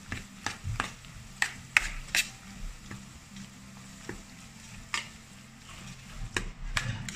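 Metal serving spoon stirring sliced potatoes and cheese in a Saladmaster stainless steel pot, with scattered clicks and scrapes of the spoon against the pot's side. A faint steady low hum runs underneath.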